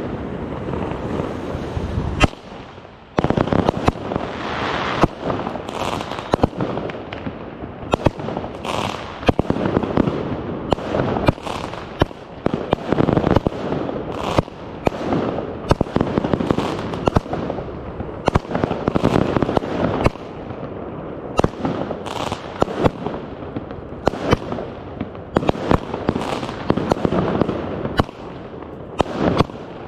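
A 36-shot consumer fireworks cake firing close to the microphone: sharp bangs one to two a second over a continuous rush of noise, with a brief lull about three seconds in.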